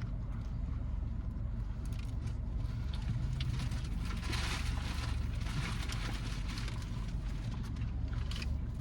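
Steady low rumble of a car idling, heard from inside the cabin, with a swell of hiss about four to six seconds in and a few faint clicks.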